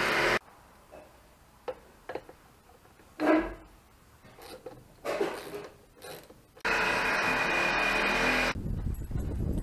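Clicks and knocks of parts being handled and fitted on a dirt bike's handlebar throttle side, broken by a short hiss at the start and a steady hiss about two seconds long near the end.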